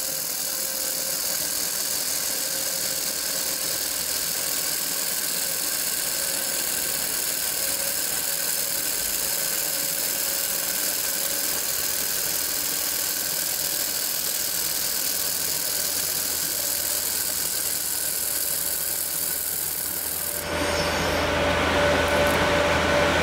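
Handheld laser welder with wire feed running a weld bead along a steel T-joint: a steady hiss. About twenty seconds in the hiss stops and a lower, slightly louder hum takes over.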